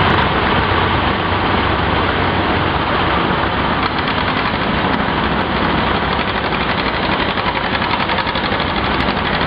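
Old farm tractor engine running steadily at a tractor pull.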